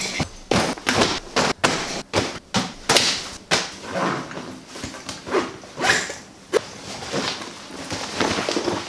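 A fabric duffel bag being handled and packed: a quick run of rustles and thumps, one or two a second.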